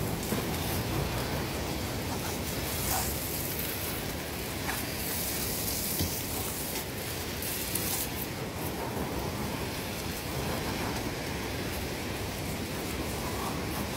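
Water from a hose spraying onto a car's bodywork: a steady splashing hiss that grows brighter and louder from about three to eight seconds in.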